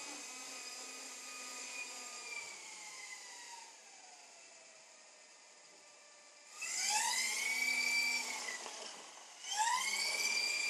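Electric motors of a Walkera Dragonfly 4#1 micro RC helicopter whining steadily, then spinning down with a falling whine. About six and a half seconds in they spin up twice with a sharply rising whine, each burst lasting one to two seconds and louder than the steady running.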